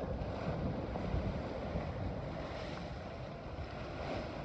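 Water rushing and splashing along the hull of a sailing yacht moving fast under sail, with wind buffeting the microphone in a steady low rumble.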